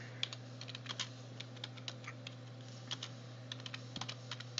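Typing on a computer keyboard: a run of quick, irregular key clicks, over a steady low hum.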